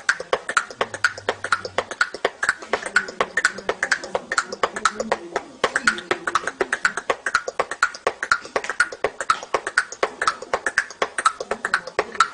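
A young boy beatboxing: a fast, even rhythm of sharp mouth clicks and pops.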